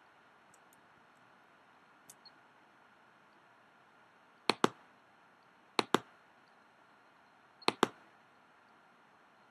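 Computer mouse clicking: three sharp double clicks a second or two apart, with a fainter pair before them, over a low steady hiss.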